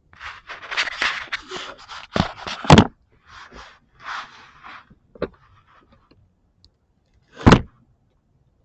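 Hands working an A/C hose fitting under a car onto its joint: rustling and scraping for about three seconds with two sharp knocks, softer scrapes, a click, and one more loud knock near the end.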